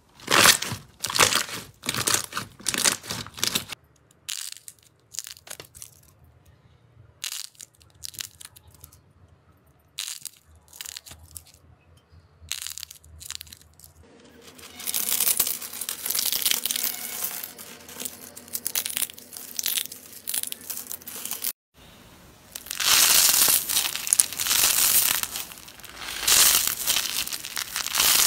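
Hands working slime and soap at close range: a quick series of sticky pops and crackles as clear slime is pressed, then some seconds of sparse soft clicks. After that comes dense crunching as a pile of soap curls is crushed, and finally crackling as a crunchy, grainy green slime is squeezed in the hand.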